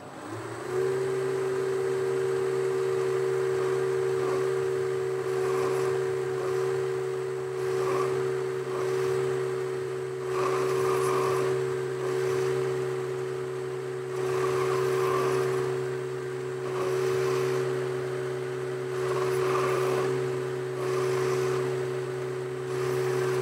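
Boxford metalworking lathe spinning up about half a second in, then running at a steady hum. The tool on a radius turning attachment cuts an aluminium bar into a ball, and the cutting noise swells and fades every couple of seconds.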